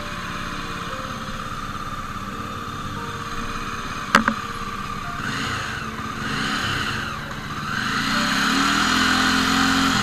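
Jawa motorcycle's single-cylinder engine idling steadily, then revved up and down twice and held at higher revs near the end. A sharp click about four seconds in.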